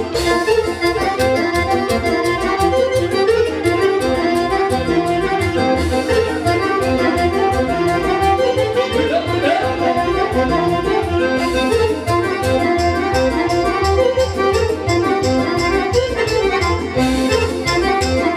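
Romanian lăutari wedding band playing lively folk dance music, with accordion carrying the melody over a steady beat and bass.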